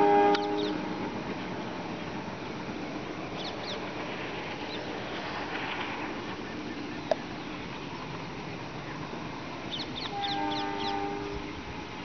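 A WDM2 diesel locomotive about a kilometre off: a horn blast cuts off in the first half-second, the distant locomotive then rumbles steadily, and a second horn blast of about a second sounds near the end. A single sharp click comes about seven seconds in, and birds chirp briefly a few times.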